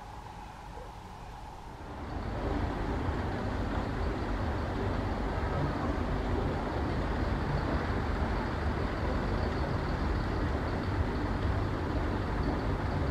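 A steady outdoor din begins abruptly about two seconds in: a running engine, from the trucks or fish-handling machinery, mixed with the murmur of a large crowd. Before that there is only a quieter low rumble.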